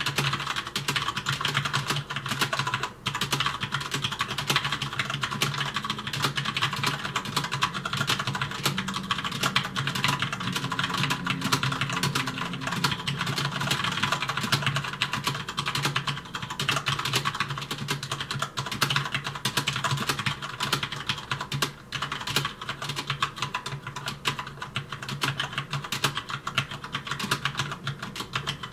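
Fast, continuous typing on a Corsair K70 mechanical keyboard with Cherry MX Brown switches: a dense run of rapid key clicks and clacks.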